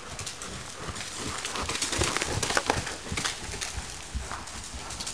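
Hoofbeats of a horse moving at a trot or canter on the sandy footing of an indoor riding arena: a run of dull thuds with small clicks, getting louder about two seconds in as the horse comes nearer.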